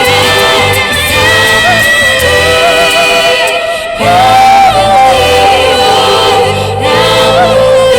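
Music: several layered, wordless singing voices holding long notes in harmony over low bass notes.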